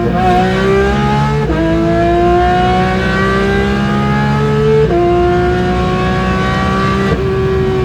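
Porsche 911 GT3's naturally aspirated flat-six accelerating hard through the gears. The engine note climbs steadily in each gear and drops sharply at each upshift: once about a second and a half in, again about five seconds in, and a third time near the end.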